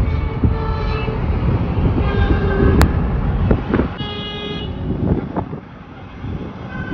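Car horns honking several times in heavy road traffic, over a steady low rumble of engines and road noise, with one sharp click near the middle.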